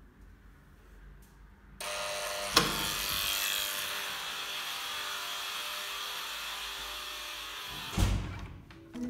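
An electric buzzer sounds steadily for about six seconds, starting suddenly about two seconds in, with a sharp click soon after it starts. Near the end a door thuds.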